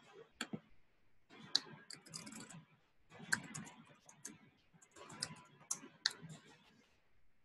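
Computer keyboard typing in several short bursts of quick key clicks as a web address is entered into a browser.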